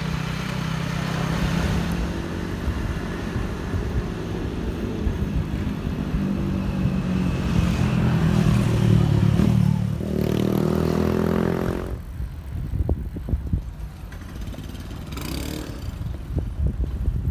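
Motorcycle engine running close by. It rises in pitch about ten seconds in and falls away suddenly about two seconds later, leaving wind buffeting the microphone.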